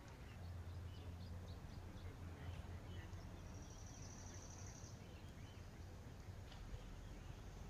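Faint outdoor ambience: small birds chirping here and there, with a brief high, rapid trill about three seconds in, over a low steady rumble.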